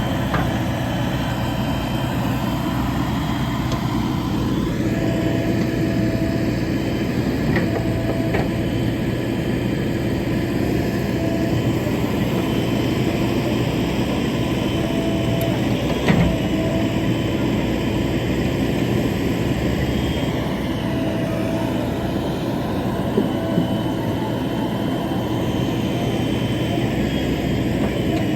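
JCB backhoe loader's diesel engine running steadily while the machine works soil in a pond, with a single sharp knock about halfway through.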